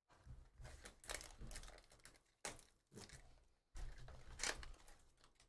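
Faint crinkling and rustling of a sealed trading-card pack's wrapper being handled, in short irregular bursts.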